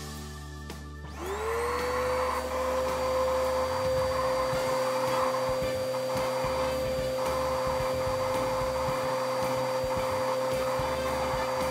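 Vacuum cleaner motor spinning up about a second in, its pitch rising quickly, then running steadily with a constant whine.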